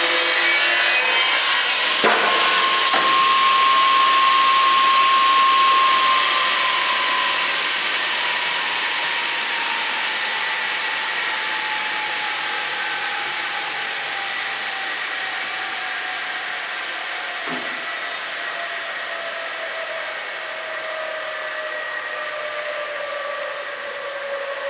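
Pistorius MN-300 pneumatic double miter saw's 14-inch blades finish cutting a wood moulding, with a sharp knock about two seconds in. The blades' whine then falls slowly in pitch and fades as they coast down, with a faint knock partway through.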